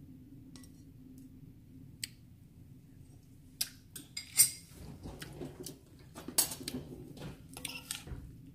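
Metal spoon clinking and scraping against a glass mixing bowl as a chopped chili-and-shrimp relish is stirred: a few scattered taps at first, then busier clinks and scrapes from about three and a half seconds in.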